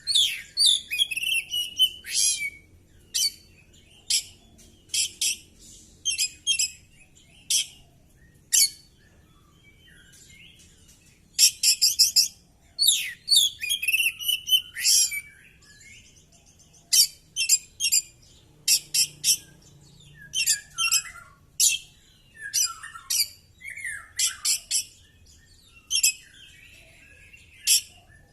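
Oriental magpie-robin (kacer) in full song, running through its repertoire: rapid runs of sharp high chips and chatters mixed with falling whistles, in bursts separated by short pauses, with a longer pause a third of the way in.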